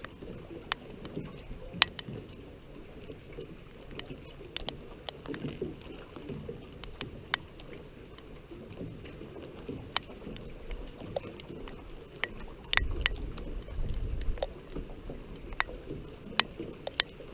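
Choppy lake water lapping against a wooden dock and a moored boat's hull, with scattered sharp ticks throughout and a stronger low rumble about three-quarters of the way through.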